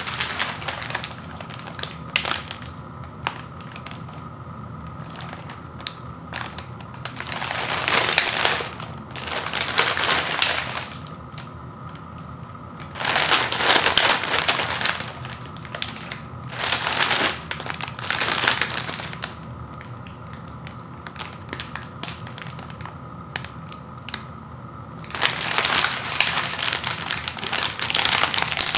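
Crinkly plastic wrapper of a cookie package crinkling as it is handled, in several bursts of one to three seconds. Near the end the crinkling turns continuous as fingers work at the package's sealed end to open it.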